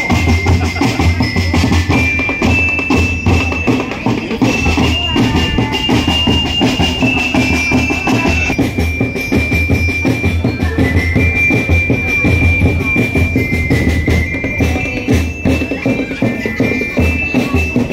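Music with a steady, loud drum beat and a high melody of held notes that steps up and down in pitch.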